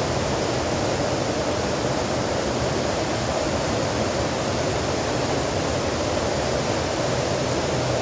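Steady rush of whitewater in a fast, rocky stream tumbling over boulders below a waterfall.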